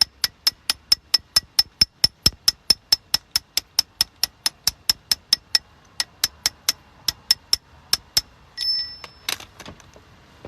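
Rapid, even metallic clicks with a ringing ping, about five a second, slowing and thinning out after about six seconds, then a short ringing scrape and a few knocks near the end: a steel hand tool working a warped lug nut off a car wheel.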